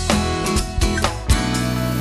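Background music led by guitar, with drum hits.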